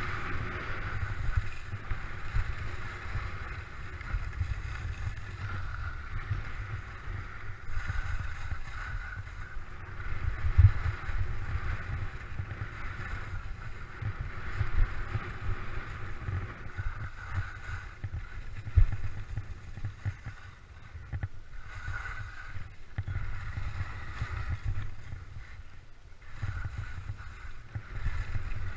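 Skis sliding and scraping over hard, tracked-up snow, a hiss that swells and fades, with wind buffeting the action camera's microphone as a low rumble and sharp thumps.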